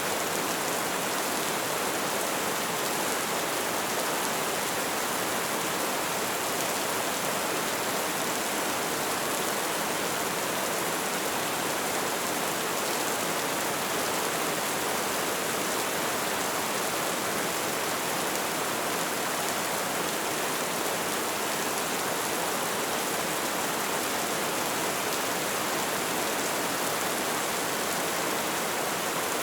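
Light rain falling steadily, an even hiss of drops with no single drop or gust standing out.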